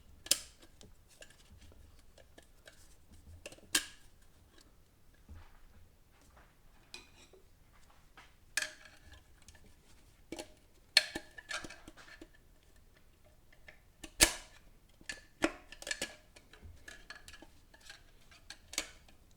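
Irregular metallic clicks and clinks of tools and steel parts being handled inside an automatic transmission case, a few sharp taps ringing briefly like struck steel.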